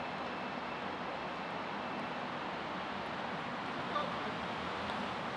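Steady outdoor urban background noise, a hum of traffic, with a brief faint sound about four seconds in.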